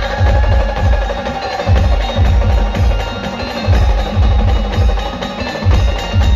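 Brass band music playing loudly: a rhythmic thumping drum beat under a held melody line.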